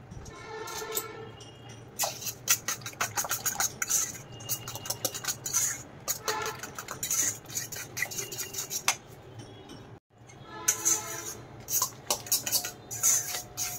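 Eggs being beaten with grated carrot and onion in a stainless steel bowl: a utensil clinks and scrapes against the metal in rapid, irregular strokes, with a brief gap about ten seconds in.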